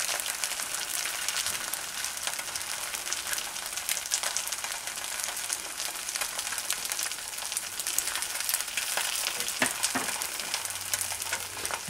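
An egg frying in avocado oil in a Teflon non-stick pan: a steady sizzle with fine crackling, and two louder pops near the end.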